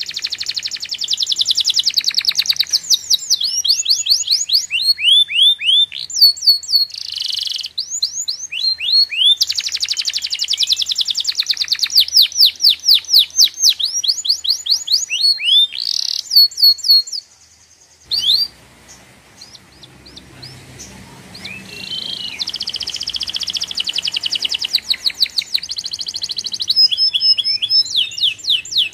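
A songbird singing close by, in fast trills of rapidly repeated high notes mixed with chirps and sweeping whistles. There is a short pause a little past halfway, after which the singing resumes over a faint low background noise.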